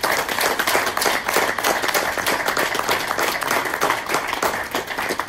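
Crowd applauding: many people clapping at once, a dense run of claps that dies down near the end.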